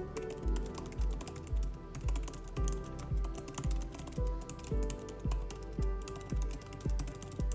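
Fast, continuous typing on an Apple Magic Keyboard for the iPad Pro: a rapid stream of light key clicks. Background music with a steady bass beat about twice a second plays over it and is the loudest sound.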